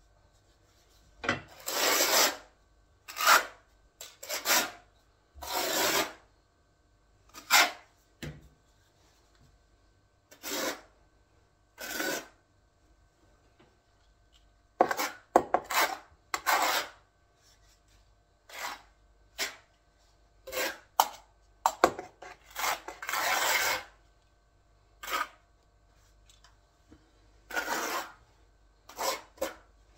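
Trowel scraping tile adhesive onto a wall: about twenty separate scraping strokes at uneven intervals, most under a second long, one lasting about two seconds a little past the middle.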